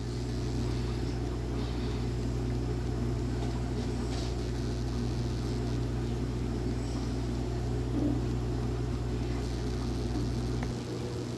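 A steady, low machine hum, like a motor or appliance running, with no other events; its deepest part cuts out near the end.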